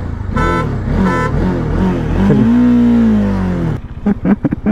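Two short horn toots about half a second apart, the end of a three-horn start signal for a drag race, followed by an engine revving up and falling back over about two seconds.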